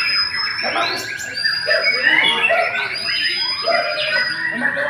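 Several caged songbirds singing over one another. The white-rumped shama's varied song of clear whistles and quick rising and falling notes is mixed with high held tones from other birds.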